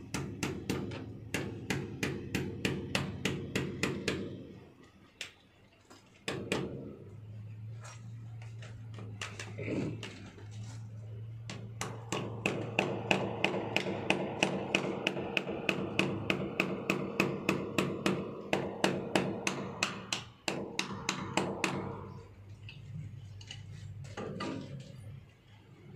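Hammer blows on a chisel against a brick wall, cutting a groove for electrical conduit. The blows come quick and even at about four a second: one run over the first four seconds, then a longer run from about halfway to near the end.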